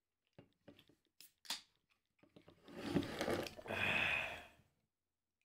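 A beer can and a drinking glass being handled: a few small clicks and two sharp taps, then about two seconds of noisy handling in two short stretches.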